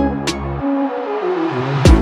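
Electronic background music: the drum beat drops out about half a second in, leaving a falling run of notes, and comes back with a heavy kick drum near the end.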